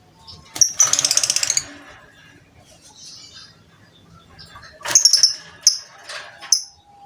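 Lovebird chattering: a fast rattling trill starting about half a second in and lasting about a second, then another burst near the five-second mark followed by a few short, shrill, high calls.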